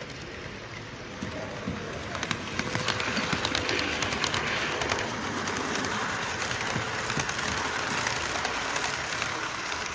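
Model trains running past on a layout: a dense run of small clicks from wheels on the rails over a steady running noise, building about a second in and loudest around three to five seconds as they pass close.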